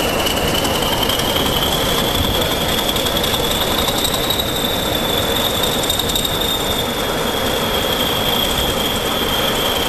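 English Electric Class 40 and Class 33 diesel locomotives pulling slowly away, their engines running under power, with a steady high-pitched whistle that drifts slowly up and down in pitch.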